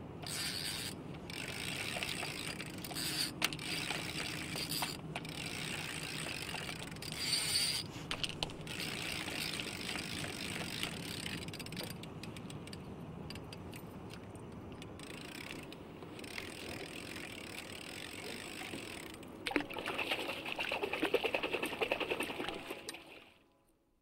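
Fishing reel being cranked, its gears and ratchet clicking steadily. A louder, faster run of clicks comes near the end, then the sound fades out.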